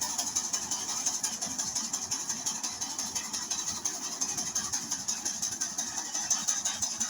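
Engine of a rice combine harvester running steadily, with a fast, even mechanical clatter and a high hiss over it.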